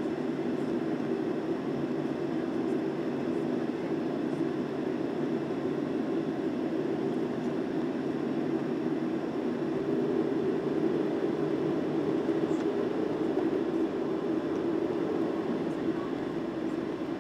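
Boeing 737-300 cabin noise while taxiing: the CFM56-3 engines at low power heard through the fuselage as a steady low hum, swelling slightly about ten seconds in.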